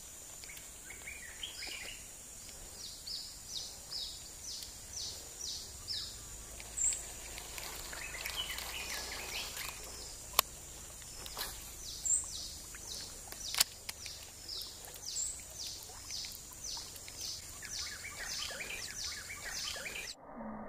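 Forest ambience: a bird repeats a short falling note about two times a second in long series over a steady high insect drone, with other scattered chirps. Two sharp clicks stand out midway.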